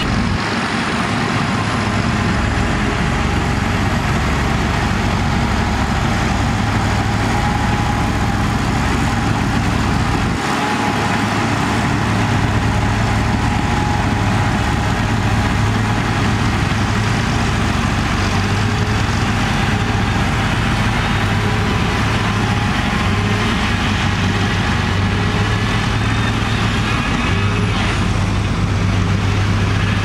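Shantui DH17 crawler bulldozer's diesel engine running steadily with a deep hum while it pushes soil, dipping briefly about ten seconds in.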